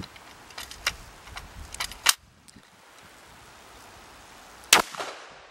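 Single-shot break-action .410 shotgun: light clicks of the action being handled, a sharp snap about two seconds in, then one loud shot near the end with a short ringing tail.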